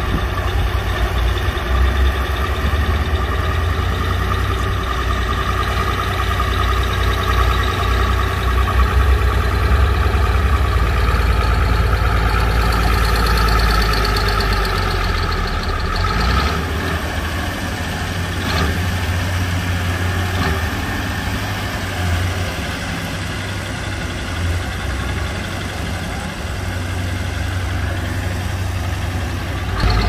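Komatsu crawler bulldozer's diesel engine running steadily while working, with a strong deep rumble that eases about halfway through.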